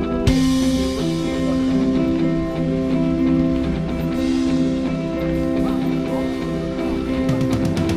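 Background music with guitar and drums, a steady beat.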